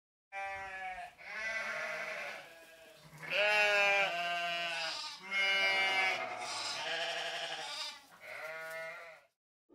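Sheep bleating: a series of about five drawn-out, wavering bleats with short pauses between them.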